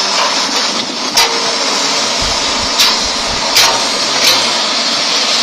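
Excavator running steadily with a loud hiss, with four sharp knocks or clanks spread through and a brief low thump about two seconds in.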